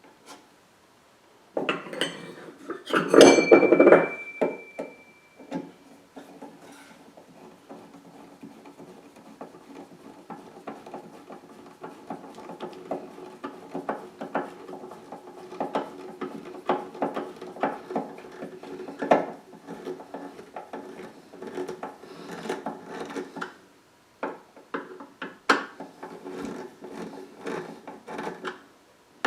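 Screws being driven into a wooden box lid's hinge, a long run of small clicks and faint squeaks as they turn. About two seconds in, a metal tool clatters loudly and rings briefly.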